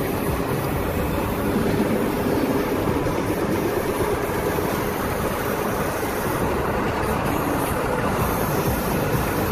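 Steady road and wind noise of a car travelling at speed on a highway, heard from inside the car by the side window.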